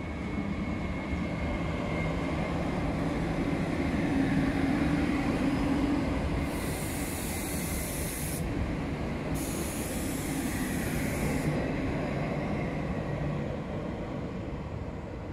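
SNCF Regio 2N double-deck electric train running along the platform and pulling away: a steady rumble and motor hum that swells for the first few seconds and then fades as it recedes. Two stretches of hiss, each a couple of seconds long, come in the middle.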